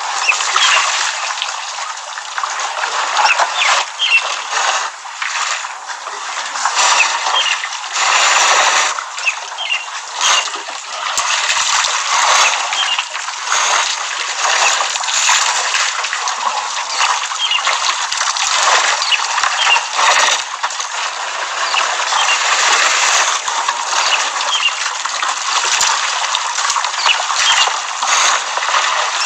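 An elephant herd splashing and sloshing water at a waterhole: a dense, uneven splashing noise that swells and dips, with short high chirps scattered through it.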